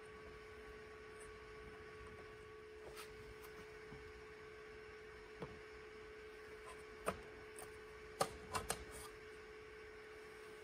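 Thin aluminium cover of a Garmin GNS480 avionics unit being handled off its chassis: a few light metallic clicks and taps, the loudest a quick cluster of three near the end, over a steady hum.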